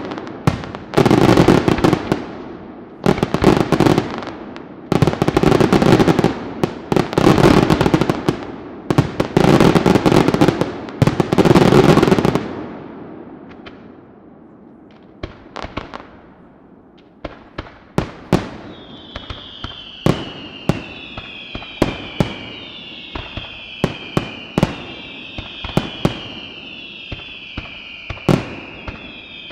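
Aerial fireworks display: for the first part, dense volleys of rapid bangs in blocks a second or two long, one after another. After a brief lull, single shell bursts go off about once a second, with a string of overlapping falling whistles running through the second half.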